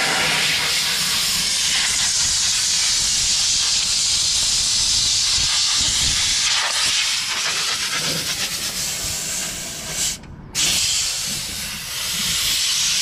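Water spraying hard onto a hydraulic oil filter as it is washed out: a steady hiss that breaks off for a moment about ten seconds in.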